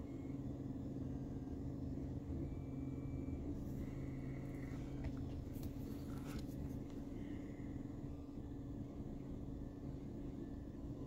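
Steady low hum, with a few faint light clicks and scrapes in the middle as a thin pick works greased steel balls into the race of an MGN9H linear rail carriage block.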